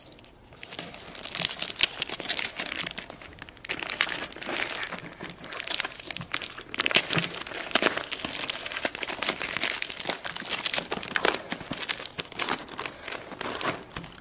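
A black plastic courier mailer bag being torn open and crumpled by hand: continuous crinkling with sharp crackles and tears.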